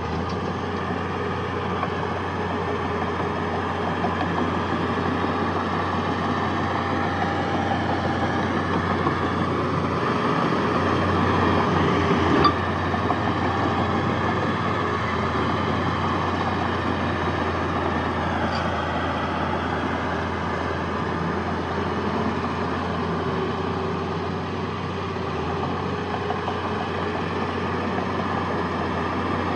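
Heavy diesel earthmoving machinery running steadily. It grows louder from about eight seconds in, up to a sharp clank about twelve seconds in.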